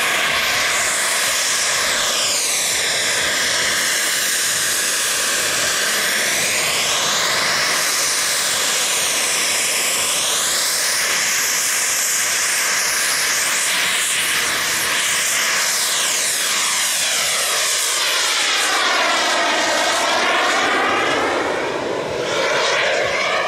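Miniature turbine engine of a radio-controlled model jet running at high power through fly-bys and a vertical climb. It makes a loud, steady jet hiss whose tone sweeps up and down several times as the plane moves past and away.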